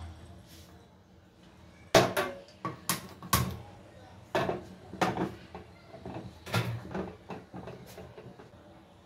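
A hinged metal stovetop waffle pan knocking and clattering against the gas burner's grate as it is moved on the stove and opened: about ten sharp, irregular knocks, the loudest about two seconds in.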